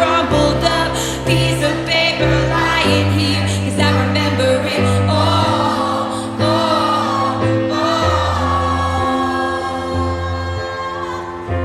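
Live acoustic ballad: a woman's voice singing long, wavering held notes over accompaniment chords that change every couple of seconds.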